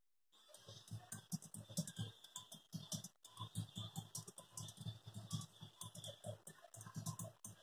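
Rapid, irregular taps of typing a message on a phone, about four or five a second, starting about half a second in.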